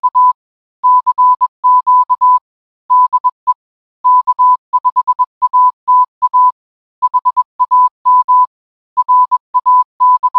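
Morse code: a single steady tone keyed on and off in short and long beeps, sent in groups with pauses between them.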